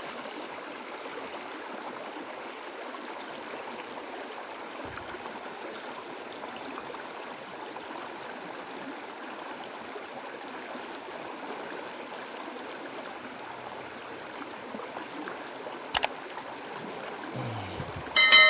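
Stream water running steadily, a continuous rushing trickle, with one sharp click late on. Right at the end a man's loud exclamation begins.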